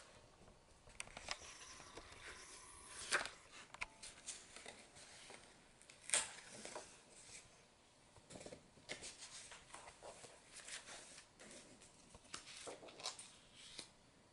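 Faint rustling and brushing of paper as the black pages of a photo scrapbook are turned by hand, with sharper page flips about three and six seconds in.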